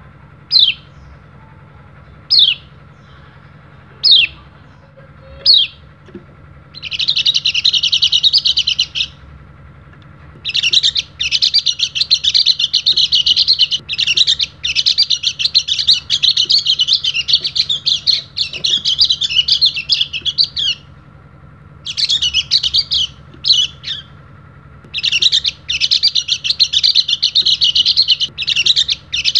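A white-eye (pleci) giving single short chirps about every second and a half, then breaking into long runs of fast, high twittering song, the longest about ten seconds.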